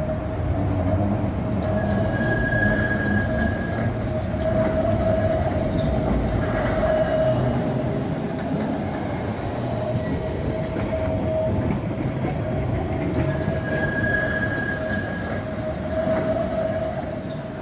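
Trams running along the track: a steady motor tone over rail rumble, with a higher wheel squeal twice.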